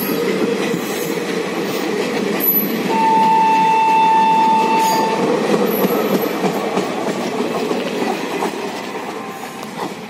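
Express train passenger coaches running past at speed, their wheels rumbling on the rails. About three seconds in, a steady high-pitched tone sounds for about two seconds. The noise fades as the last coach passes and draws away.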